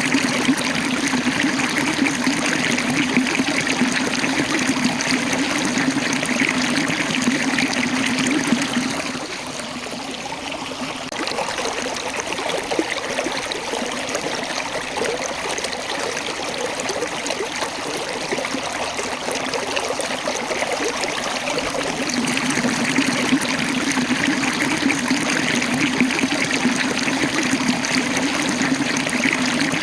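Small waterfall, water rushing and splashing steadily over rocks; it drops a little in level for a couple of seconds about nine seconds in, then picks up again.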